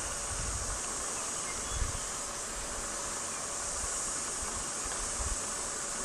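Steady high-pitched insect chorus with no break, with light wind rumbling on the microphone now and then.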